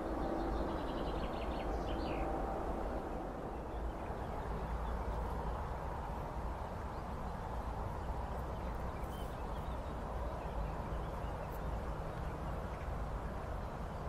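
Eurasian oystercatchers giving a quick run of high piping calls in the first two seconds, over a steady low background rumble.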